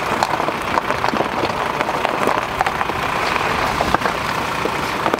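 Nissan Navara pickup's tyres rolling over a loose stony track: a steady crunch of gravel with many small stones clicking and popping under the wheel.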